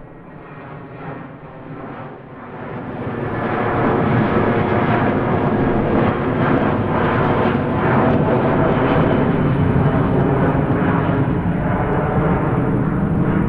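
Airplane engine noise of a plane flying past. It swells louder between about two and four seconds in, then holds steady and loud.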